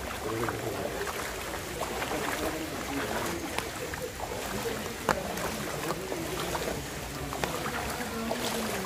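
Floodwater sloshing and splashing as someone wades through a flooded lane, with irregular sharp splashes over a steady watery wash. Faint voices in the background.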